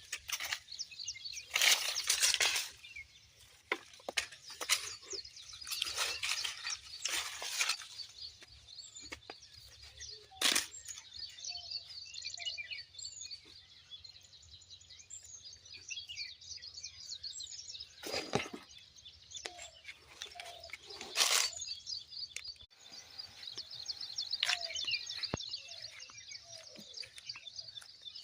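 Small birds chirping almost continuously, with several brief loud bursts of noise, the longest in the first eight seconds and single ones about 10, 18 and 21 seconds in.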